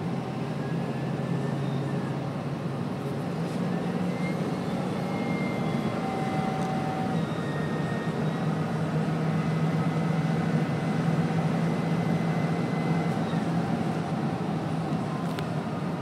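6.7-litre Power Stroke turbodiesel V8 of a Ford F-550 running at cruise, heard from inside the cab, with a high turbocharger whine over the engine drone and road noise. The whine rises about four seconds in, holds, and eases off near the end. It comes from a turbo with a chunk missing from one of its wheel fins, which the owner takes for a turbo about to fail.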